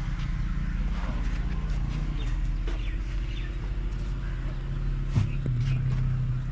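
Old black stationary engine with a big flywheel running steadily, a low even beat with a knock or two about five seconds in, while birds chirp.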